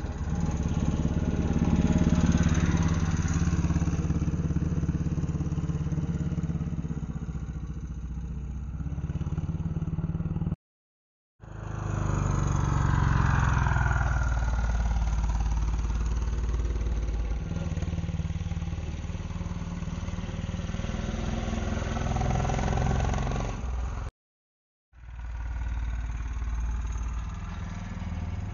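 Pit bike's small single-cylinder engine running as the bike laps the track, its pitch rising and falling with the throttle. The sound cuts out abruptly twice, about 11 and 24 seconds in.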